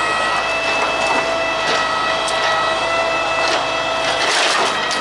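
Truck-mounted hydraulic crane running with a steady high whine while its scrap grapple crushes wooden pallets, the wood cracking and snapping several times.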